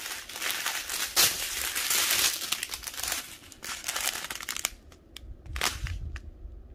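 Small plastic zip bags of diamond painting drills crinkling as they are handled, with a few sharp clicks near the end.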